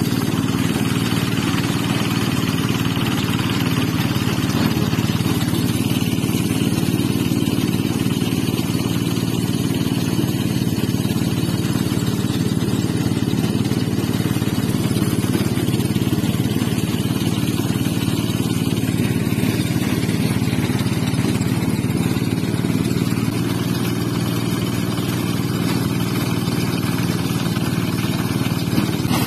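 Portable engine-driven rice thresher running steadily while threshing rice stalks, a continuous even engine and machine drone with no change in speed.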